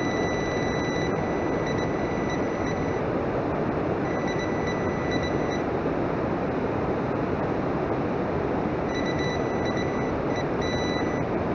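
A high, steady electronic beep tone sounds for about three seconds at the start, again for a second and a half around the middle, and again near the end with short breaks, over a steady rushing noise.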